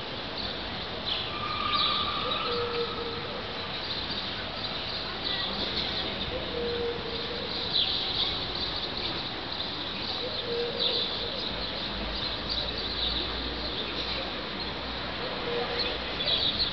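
Birds chirping: many short, high chirps throughout, with a short low note repeating about every four seconds.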